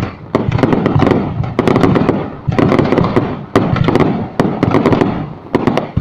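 Aerial fireworks going off in quick succession: a loud bang about once a second, each trailing off in a rumble, with sharp crackling pops in between.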